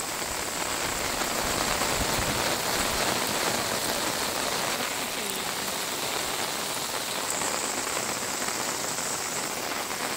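Steady hiss of heavy rain falling, an even rushing noise with no breaks.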